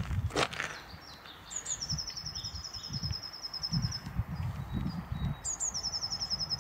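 A songbird sings two fast, high trills of evenly repeated notes, each opening on a slightly higher note: the first lasts about two and a half seconds, the second starts near the end. Dull low thuds from walking and handling the camera run underneath.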